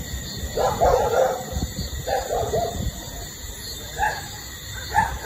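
A dog whining in two short cries about a second and two seconds in, then two brief yelps near the end.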